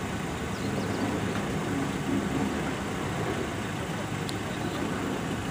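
Steady background traffic noise with vehicle engines running.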